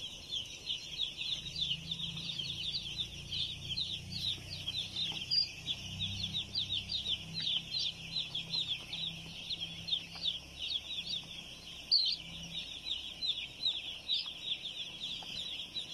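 A large flock of young broiler chicks peeping all at once: a dense, unbroken chorus of short, high, falling peeps.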